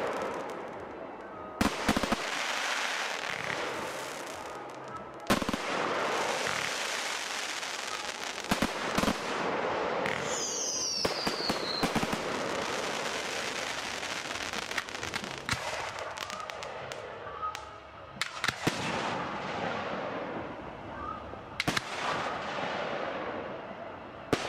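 Fireworks display: aerial shells bursting with sharp bangs every few seconds over a continuous dense crackling of glitter stars. A high whistle falls in pitch about ten seconds in.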